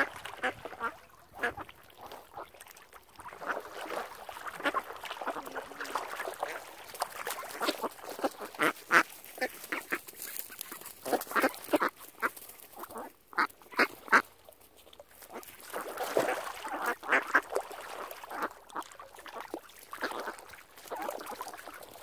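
A group of ducks quacking: rapid runs of short, repeated quacks with brief lulls between them.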